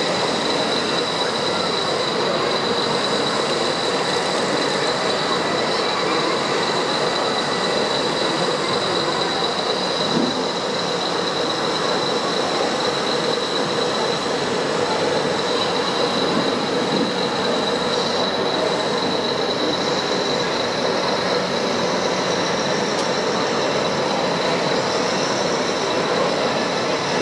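Radio-controlled hydraulic construction models running: a steady high whine of pumps and small motors over a constant hiss.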